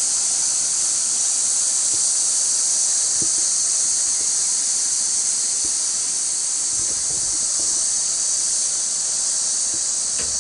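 Insect chorus in bushland: a steady, high-pitched drone of many insects that never breaks.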